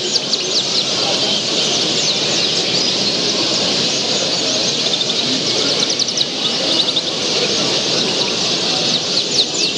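Many caged canaries singing and chirping at once: a dense, continuous stream of short high notes, over a low murmur of crowd voices in the hall.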